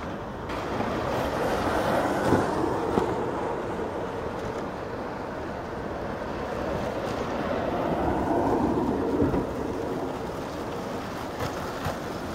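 Streamlined velomobiles rolling past on asphalt: a rushing hum of tyres and drivetrain that swells twice as they go by.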